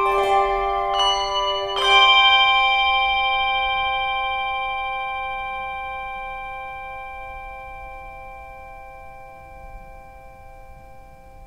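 Bells struck a few times in the first two seconds, several notes sounding together. The last and loudest strike rings on and slowly fades away over about ten seconds.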